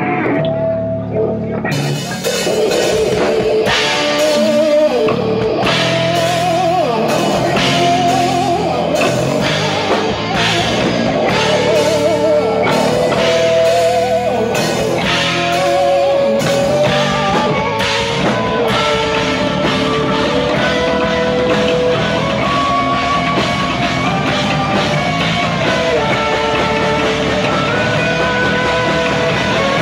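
Live rock band playing: electric guitars, bass guitar and a drum kit, with a wavering lead melody over the band. The drums and cymbals come in about two seconds in.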